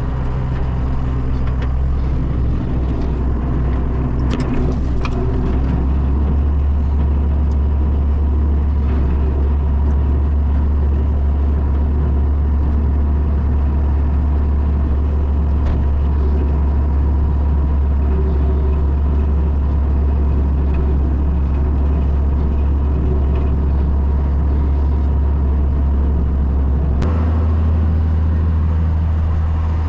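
Tractor engine running steadily while pulling a bush hog rotary cutter that mulches plants, a strong low drone; the sound changes abruptly near the end.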